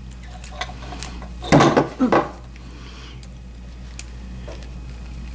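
Small plastic plug parts and a screwdriver being handled while wiring a cord end: light clicks and scrapes, with two louder knocks about a second and a half in and at two seconds. A steady low hum runs underneath.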